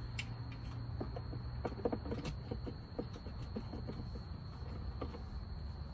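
Scattered small clicks and light knocks of car front-end parts being handled and fitted by hand, over a steady low hum.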